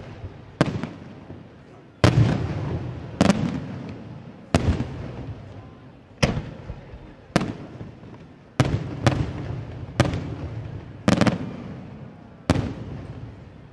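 Aerial firework shells bursting in a display, about a dozen sharp bangs roughly a second or so apart, with two close together near the end. Each bang fades out over a second or more.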